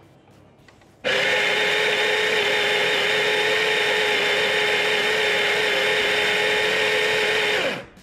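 Baratza Sette 270 conical burr coffee grinder grinding beans straight into a portafilter. The motor starts abruptly about a second in, runs with a steady whine, and winds down with falling pitch just before the end.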